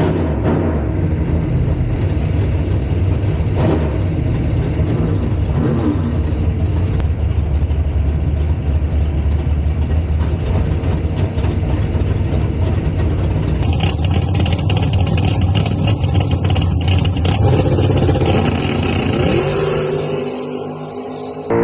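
Drag race car V8 engine running with a steady, heavy low rumble. About two-thirds of the way through the sound cuts abruptly to a brighter, noisier engine recording with a couple of short revs, then dips near the end.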